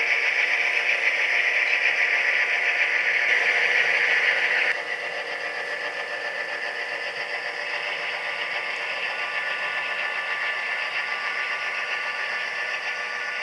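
A Tsunami sound decoder in an HO-scale EMD SD9 model locomotive plays a diesel prime mover running sound through the model's small speaker. It runs steadily, then drops to a noticeably quieter level about five seconds in and carries on at that level.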